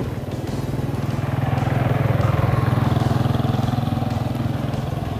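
Motorcycle engine passing by, its steady note growing louder to a peak about halfway through and then fading slightly.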